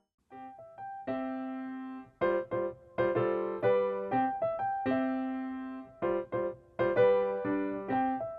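Background music: a piano melody with chords, notes struck and left to ring and fade.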